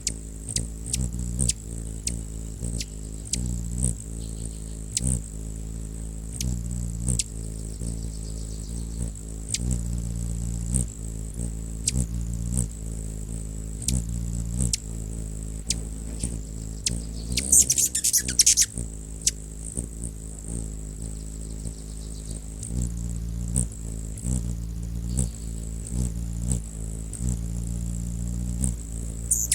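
Hummingbird wings humming: a low, steady buzz that keeps swelling and fading, with sharp ticks about once a second. A short burst of high, rapid chirping comes a little past halfway.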